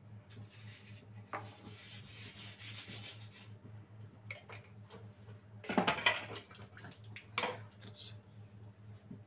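Cooking oil poured into a hot kadai with a soft hiss, followed about six seconds in by a loud clatter of kitchen utensils and a lighter knock a second and a half later.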